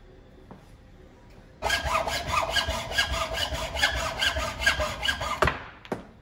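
A hacksaw cutting through a wooden dowel clamped in a bench vise, in quick, even back-and-forth strokes starting about a second and a half in. The sawing stops near the end with a couple of sharp knocks.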